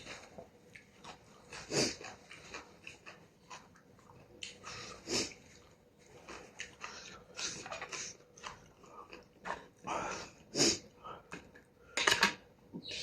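A person eating noodle soup up close: irregular slurps and mouth noises, a few louder slurps scattered through.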